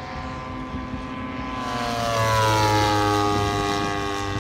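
Radio-controlled WW2 warbird model's engine and propeller running steadily in flight, getting louder as the model passes close and dropping in pitch as it goes by, about two seconds in.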